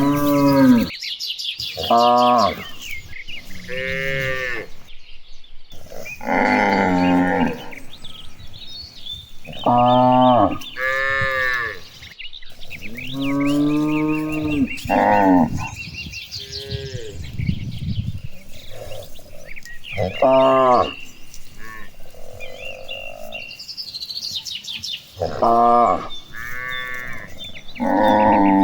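A herd of cattle mooing: a dozen or so separate long, pitched moos, one after another and sometimes overlapping, from several cows.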